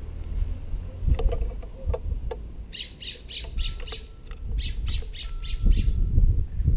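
Western scrub jay giving two quick runs of harsh calls, about five notes each, starting about three seconds in. Bursts of low rumble, loudest near the end, and a few light knocks earlier.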